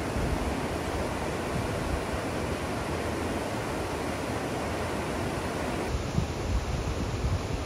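River rapids rushing over rock ledges: a steady wash of white water. About six seconds in the sound changes, with the water further off and wind gusting on the microphone.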